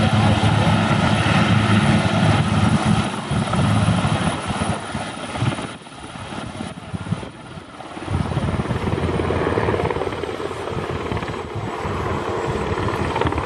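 Helicopter rotor and turbine noise at close range, loud and steady, easing briefly about six seconds in before rising again.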